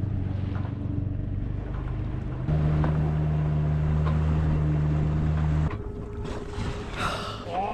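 A small sailboat's auxiliary engine running at a steady pitch while motoring. It is louder for a few seconds in the middle.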